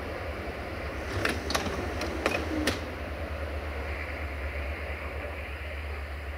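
Diesel-hauled passenger train running away over the pointwork, a steady low engine rumble under it. About a second in comes a quick run of five sharp clacks, wheels striking rail joints and switch frogs.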